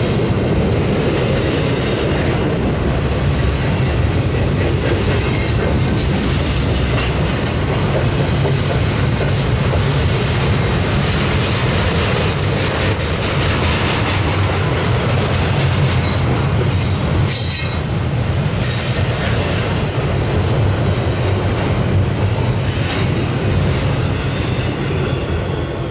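Double-stack intermodal well cars of a freight train rolling past close by: a steady, loud rumble of steel wheels on rail, with brief high-pitched wheel squeals a few times. The sound drops away near the end as the last car passes.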